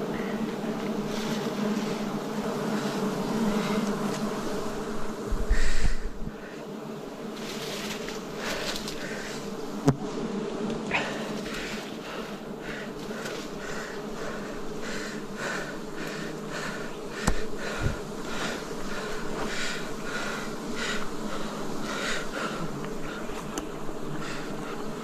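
A swarm of wild honeybees buzzing steadily around a hive. Short taps or scrapes come through the buzzing over the second half, with a loud thump about five and a half seconds in and two smaller thumps later.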